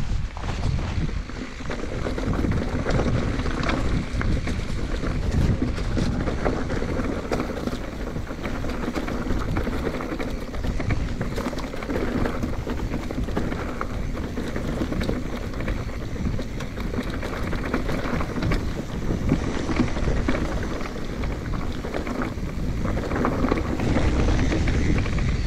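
A mountain bike riding a rough trail: a steady rush of wind over the microphone, tyre noise, and many small knocks and rattles from the bike over the ground.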